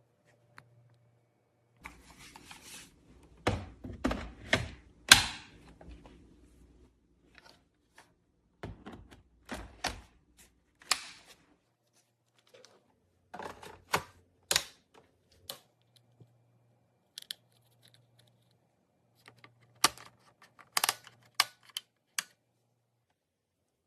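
Irregular clicks, taps and knocks of hard objects being handled, in short clusters with quiet gaps between them.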